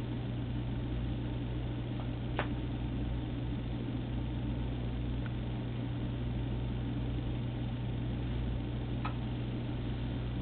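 Steady low electrical hum with an even hiss, and two faint clicks, one about two seconds in and one near the end.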